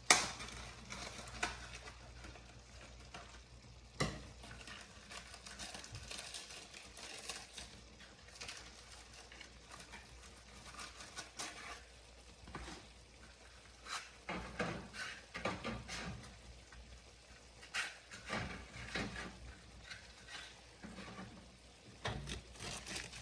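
Kitchen cooking and handling sounds: stirring and scraping over a light sizzle, with several sharp knocks of cookware, the loudest right at the start.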